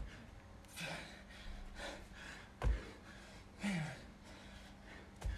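An athlete gasping and exhaling hard between alternating dumbbell snatches. A 22.5 kg dumbbell lands with a thud on the rubber floor mat twice, about two and a half seconds in and again near the end.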